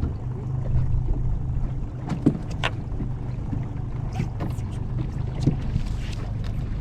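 Boat motor running at a steady low hum, with a few sharp knocks and clicks about two seconds in and again near the end.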